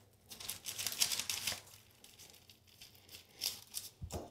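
Parchment paper crinkling and rustling under hands rolling plumber's putty into a rope, in irregular faint bursts that are busiest in the first second and a half. A soft knock near the end.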